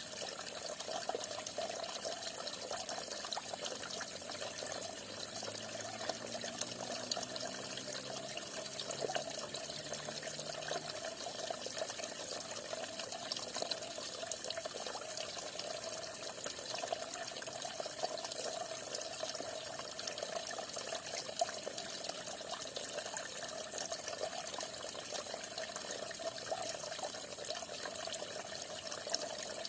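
Falling water splashing steadily, a continuous even rush.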